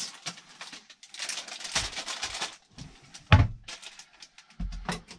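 Packaging rustling and items clattering as a kitchen cabinet is rummaged through for a bag of chocolate chips, with one sharp knock about three seconds in and a duller thump near the end.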